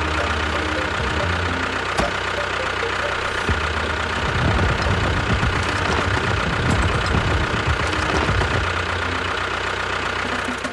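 Engine sound of a miniature DIY construction vehicle running steadily, with a thin steady whine above it; it grows a little louder and rougher about four seconds in.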